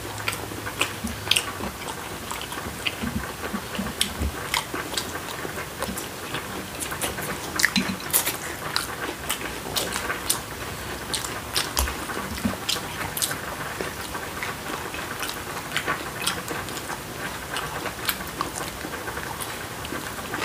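Close-up chewing and crunching of crispy boneless fried chicken, a steady run of irregular crackles.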